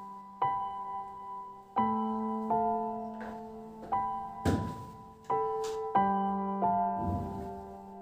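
Background music: a slow, gentle solo piano piece, single notes and chords struck about once a second and left to ring and fade.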